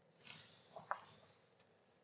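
Near silence: quiet room tone with a faint soft hiss and two small ticks just under a second in.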